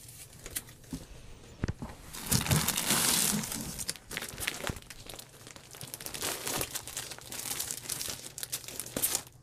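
Cross-stitch kit packages in plastic sleeves crinkling and rustling as they are handled, with many small clicks; loudest from about two to three and a half seconds in.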